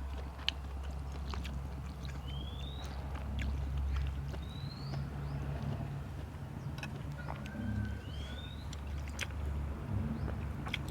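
Eating sounds: chewing with sharp crunches and clicks over a steady low rumble. A short rising whistling call sounds three times.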